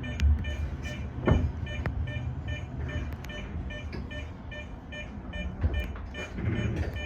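Tōyō Rapid Railway 2000-series train running between stations: a steady low rumble with scattered clicks, with a rapid, even high beeping about four times a second throughout.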